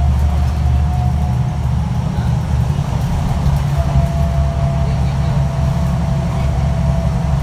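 Diesel city bus engine and drivetrain running under way, heard from inside the passenger cabin as a steady low hum. A thin steady whine rides over it, fades out about a second and a half in, and comes back near the four-second mark.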